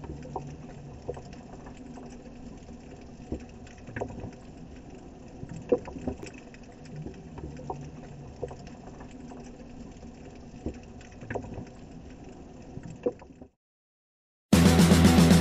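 Sea water lapping and gurgling around a camera held at the surface, with scattered small sharp splashes and clicks; it cuts off about 13 seconds in. After a second of silence, loud rock music comes in near the end.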